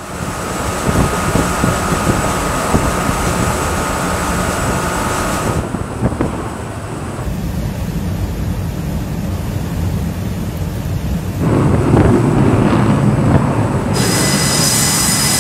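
Steady rumbling noise of wind and engines from raw footage at sea, its character shifting abruptly at each cut. A high steady whine joins near the end.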